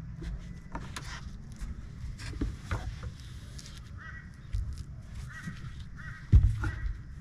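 Knocks and clatter from work on a boat deck, with one loud thump about six seconds in, and a bird calling four times in the second half.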